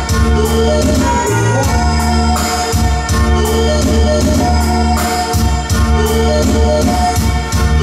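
Loud music with a steady beat, heavy bass and held keyboard notes.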